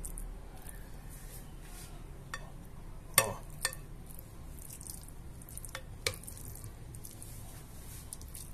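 A plastic spoon spreading and pressing shredded chicken filling in a glass baking dish: soft moist scraping with a handful of sharp clicks of the spoon against the glass, the loudest about three seconds in.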